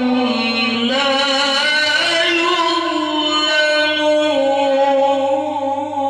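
A man reciting the Quran in the melodic tilawah style into a microphone, holding long drawn-out notes that slide slowly from pitch to pitch.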